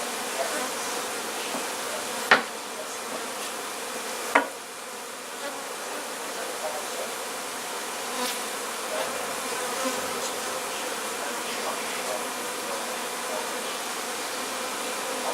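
A mass of honeybees buzzing steadily around an opened hive, with two sharp knocks about two seconds apart early on.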